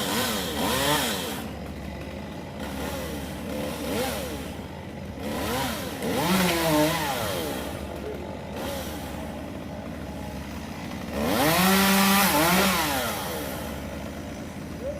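Chainsaw cutting a hemlock tree, its engine revving up and easing off in repeated bursts. The longest and loudest burst comes about eleven seconds in.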